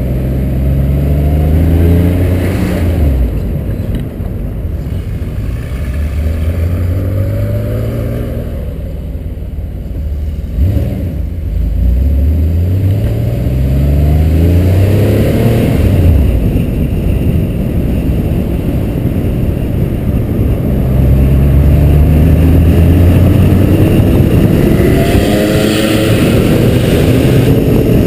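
Air-cooled flat-six of a mid-year Porsche 911 accelerating through the gears. Its note climbs in pitch and drops at each shift, several times over. Wind and road noise rise near the end as it reaches highway speed.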